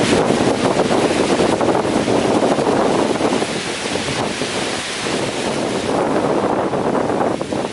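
Strong wind gusting through small trees with heavy rain, a loud steady rushing noise that surges and eases.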